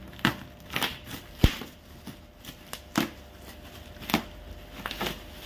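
Bubble wrap and plastic packing tape crinkling and crackling as a parcel is pulled open by hand, in separate scattered handling noises. A sharp thump about one and a half seconds in is the loudest sound.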